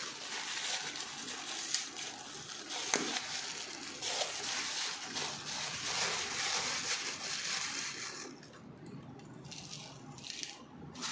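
Thin plastic bag crinkling and rustling as hands open it and take out thread mishri (crystal sugar), with many small clicks. About eight seconds in it thins out to a few short rustles.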